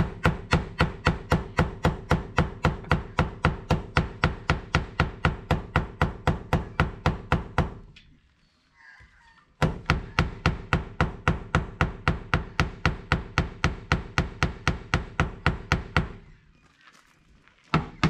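A hammer striking the sheet-metal rear body panel of a Mitsubishi Mirage hatchback in a steady run of blows, about four a second, each with a short ring. The blows knock out dings in the panel before it is filled with body filler. The hammering pauses briefly twice, about eight seconds in and again about sixteen seconds in.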